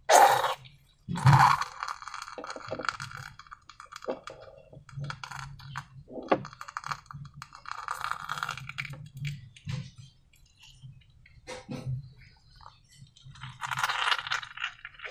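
Handling sounds of slime making: two loud knocks near the start, then scattered clinks and clicks of containers and tools, with short rustling bursts about halfway through and again near the end.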